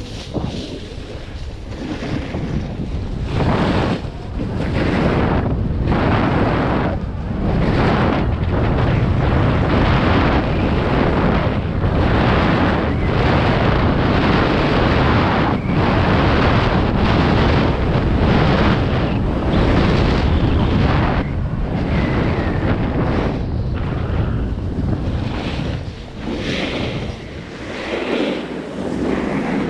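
Wind buffeting the microphone while a snowboard slides and scrapes over packed, groomed snow on a downhill run, the hiss swelling and easing with each turn.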